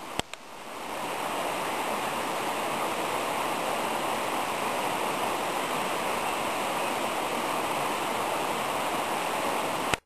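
Steady rush of flowing water, like a stream or waterfall, fading in over the first second and then holding even.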